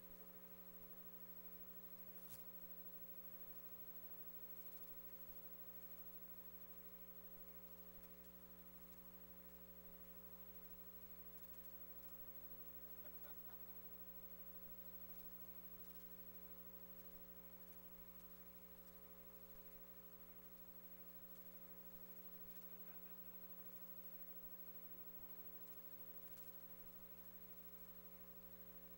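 Near silence with a faint, steady electrical hum of several unchanging tones, with a few faint ticks.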